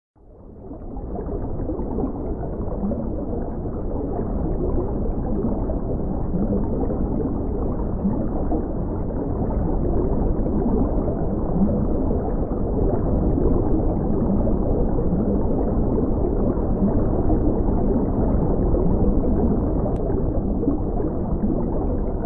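Underwater ambience: a steady, muffled wash of water noise, fading in over the first second and cutting off abruptly at the end.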